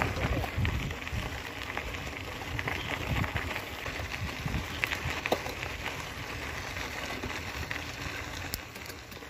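Mountain bike tyres rolling over a loose gravel dirt road: a steady crackling crunch with scattered small clicks and a low, uneven rumble of wind on the microphone.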